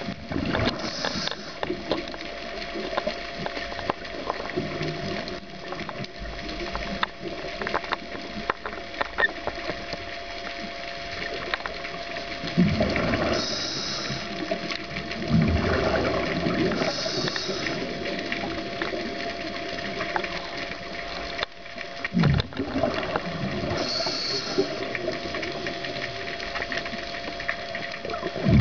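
Underwater sound of a scuba diver breathing through a regulator: a hiss on each inhale and a low burble of exhaled bubbles every few seconds, over a faint steady hum.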